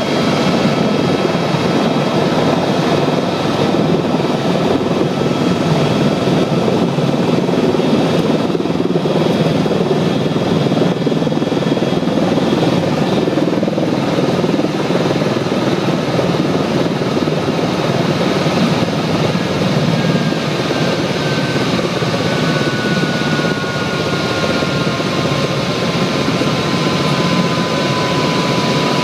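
Helicopter engine and rotor running loud and steady, heard from inside the cabin as it comes down to land on the ground. About two-thirds of the way in, a whine slowly falls in pitch and the noise eases slightly.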